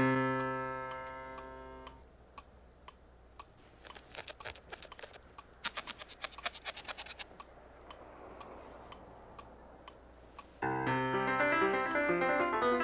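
Grand piano: a chord struck at the start and left to ring out for about two seconds. Then comes a run of quick, sharp little clicks, and about two seconds before the end a rapid run of piano notes begins.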